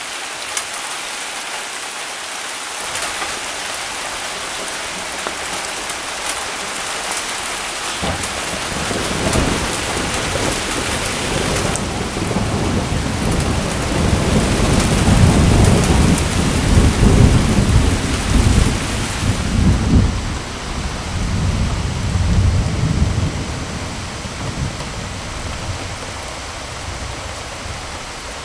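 Steady rain hissing throughout a thunderstorm, with a long roll of thunder that builds about a third of the way in, is loudest around the middle, and rumbles away toward the end.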